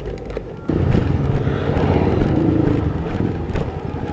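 Small petrol engine of an Alkon water pump, which goes from a low rumble to running loud and hard less than a second in, as it is throttled up or catches.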